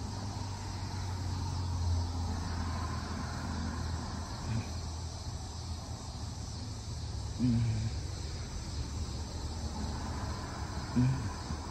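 Steady low drone of a distant MARC MP36PH-3C diesel locomotive, its 16-cylinder EMD 645 engine working under power as the train approaches, with insects chirring. Two short, louder sounds come about seven and a half and eleven seconds in.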